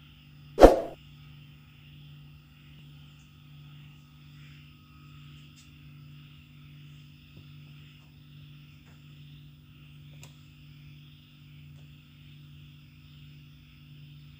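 A single short thump about half a second in, then a steady low mains hum with a faint hiss from the powered-up homemade PCB CNC machine, standing still.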